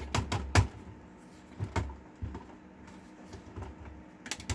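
Sharp clicks and knocks of small screws and the printer's casing being handled: a cluster right at the start, a few more around two seconds in, and a quick run of light clicks near the end.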